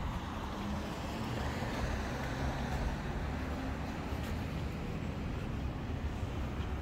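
Street traffic ambience: a steady low rumble of cars on the road, with a faint engine hum.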